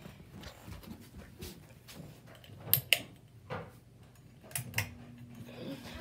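Two pairs of sharp clicks from the pull-chain switch of a Harbor Breeze Grace Bay 52-inch ceiling fan, about 2.7 and 4.6 seconds in. With the second pair a low steady hum sets in as the fan motor starts up.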